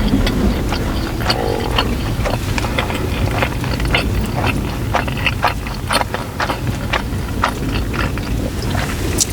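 Close-miked eating sounds: a run of short wet crunches and smacks, a few each second, as fried chicken wings and pizza are chewed. A steady low rumble sits underneath.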